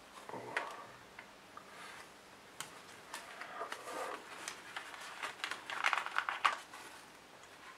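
Handling noise: a small paper card rustling in the hands, then plastic fountain pens clicking against their moulded plastic tray, with a quick run of clicks about six seconds in.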